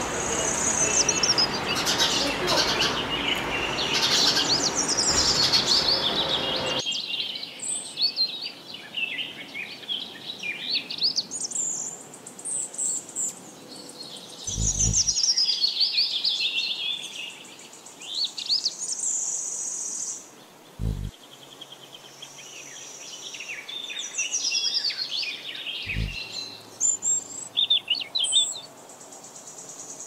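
Small songbird singing: rapid, high-pitched chirping and warbled phrases with short pauses between them. A background hiss under the first few seconds cuts off abruptly.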